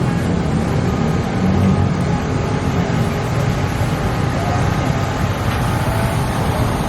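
Steady din of a busy street: a low traffic rumble under faint crowd voices.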